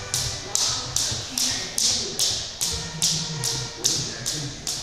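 A steady rhythm of sharp taps on a wooden gym floor, a little more than two a second, from a workout drill.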